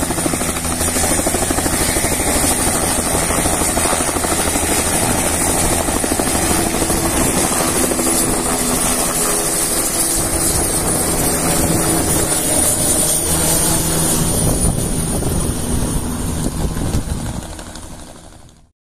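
Bell 505 Jet Ranger X helicopter lifting off and climbing away: its single turboshaft engine runs with a steady high whine over the beat of the main rotor. The sound fades out near the end.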